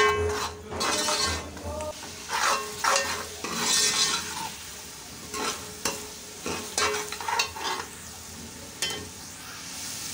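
Steel spoon stirring and scraping an onion-tomato masala frying in oil in a metal pot, the strokes irregular and some ringing off the metal, over a sizzle. The masala is being cooked down until the tomatoes soften. Near the end the stirring stops and only a steady sizzle is left.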